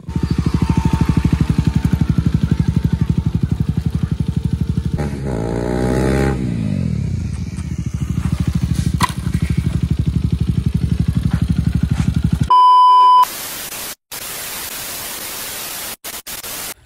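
Motorcycle engine running hard with a fast pulsing exhaust, revving up and back down around five to seven seconds in. About twelve and a half seconds in it cuts to a steady high test-tone beep, then to a hiss of TV static with a few brief breaks.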